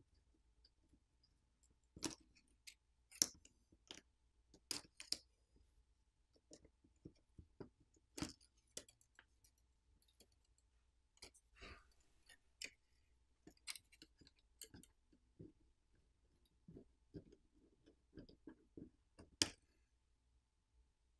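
Faint, irregular clicks as the flex cable connectors of a Samsung Galaxy S24 Ultra are popped off their board sockets with a plastic pry pick. There are about a dozen sharp snaps and taps, with a short soft scrape about halfway through.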